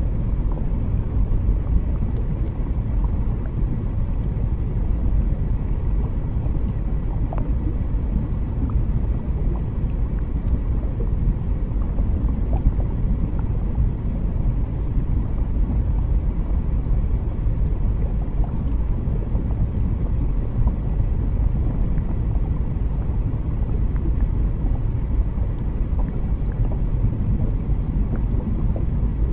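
Steady low underwater rumble ambience, with a few faint small clicks and bubbly flicks scattered through it.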